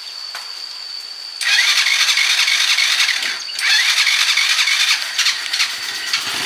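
A vehicle engine being started: loud cranking begins about a second and a half in, pauses briefly, resumes, and a deeper running sound builds in near the end.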